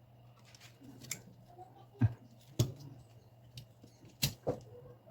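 A few sharp clicks and taps of small tools and parts being handled during laptop disassembly: two about two seconds in, half a second apart, and another pair near the end, over a low steady hum.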